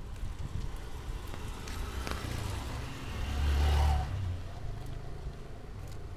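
A motor vehicle passes close by on the street, its engine rumble rising to a peak about three and a half seconds in, then fading away.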